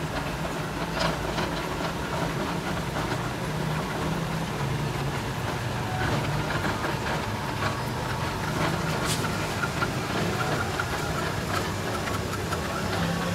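Filter-paper pleating machine running steadily: a low, even mechanical hum with a few faint clicks as it folds the yellow filter paper into pleats.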